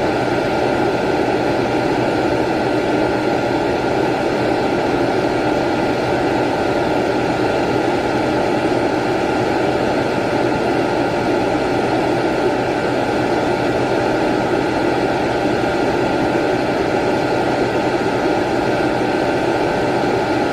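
Vacuum cleaner running steadily: a constant motor whine over rushing air noise, with no change in speed.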